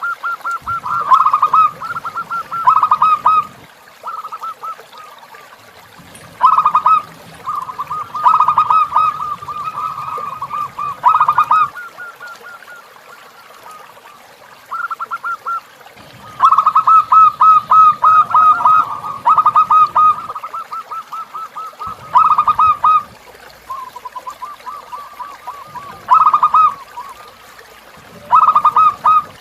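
Zebra doves (perkutut) calling: bursts of rapid staccato cooing notes, each lasting one to three seconds, come again and again with short pauses between.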